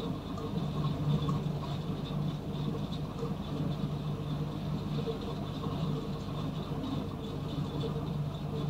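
Steady low hum with faint higher steady tones over a soft hiss: the background noise of the recording, with no voices.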